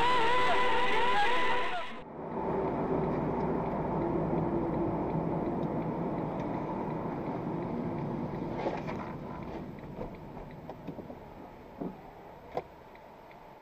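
Background music ends abruptly about two seconds in. Then comes a dashcam's in-car sound of a car driving: steady road and engine noise that slowly grows quieter, with a couple of short clicks near the end.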